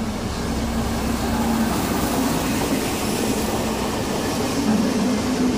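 SNCF BB 69400-class diesel locomotives and a control coach passing close by: rolling noise of the wheels on the rails over a steady diesel engine drone.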